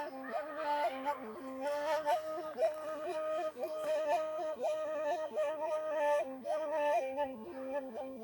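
Gasba, the Moroccan end-blown reed flute, playing an ornamented melody in sustained notes with quick turns between them.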